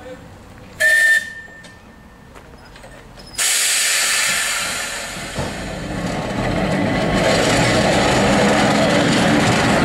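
Manx Electric Railway tramcar No. 2 gives one short whistle toot about a second in. A couple of seconds later a loud steady hiss starts suddenly, and the car pulls away, its motors and wheels rumbling louder as it gets moving.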